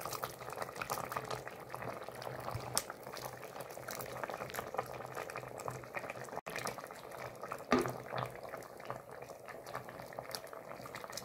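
A pot of lentil and noodle soup bubbling at a steady boil while a ladle scoops soup and pours it into a glass bowl. A single knock of the ladle about three-quarters of the way through.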